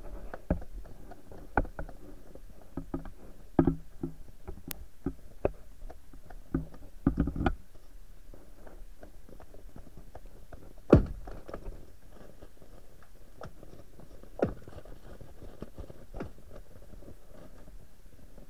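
Muffled knocks and clicks, scattered and irregular, heard through a camera submerged under the ice, over a low steady rumble. There is a cluster of knocks about seven seconds in, and the loudest single knock comes about eleven seconds in.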